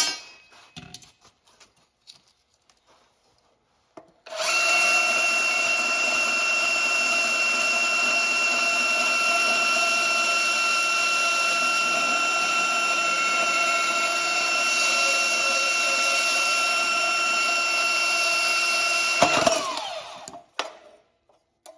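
Electric power tool running steadily at one speed for about fifteen seconds, starting about four seconds in and winding down quickly near the end. A few light metal knocks come before and after it.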